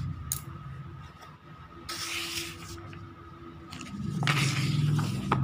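Paper textbook pages being handled and turned, rustling twice: briefly about two seconds in, then longer from about four seconds in.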